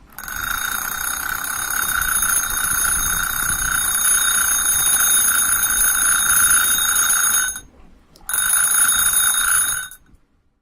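Electric school bell ringing, set off by an Arduino-based automatic bell controller. It rings steadily for about seven and a half seconds, stops for under a second, then rings again for under two seconds.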